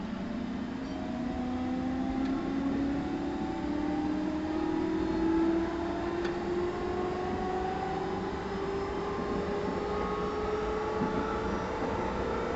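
JR 211 series 5000-subseries electric train's traction motors whining and rising slowly and steadily in pitch as the train accelerates, heard inside the motor car over a steady low rumble of the running gear.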